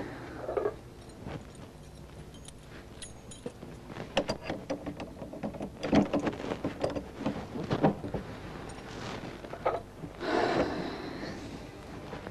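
A run of sharp clicks, knocks and rattles, thickest in the middle, over a steady low hum.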